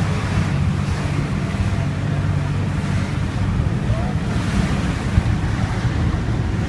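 Wind rumbling steadily on the microphone over a steady low hum.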